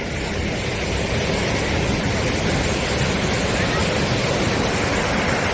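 Sea surf washing up a sandy beach: a steady rush of breaking waves.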